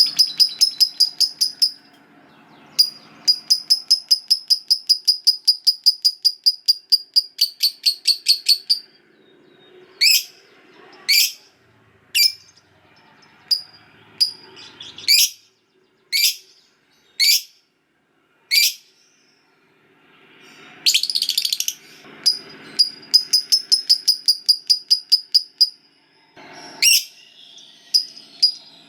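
Lovebird singing its long 'ngekek' chatter: runs of rapid, shrill, high notes, about ten a second, lasting several seconds. Between the runs come single sharp down-sweeping chirps about a second apart, and the rapid chatter starts up again later on.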